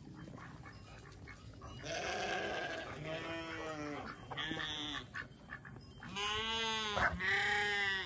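Farm animals bleating: about five wavering bleats in a row, starting about two seconds in, the last two the loudest.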